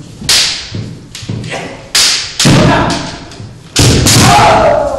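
Kendo sparring: sharp cracks of bamboo shinai strikes and stamping feet on a wooden dojo floor, several in a few seconds. Near the end comes a long, loud kiai shout that falls in pitch.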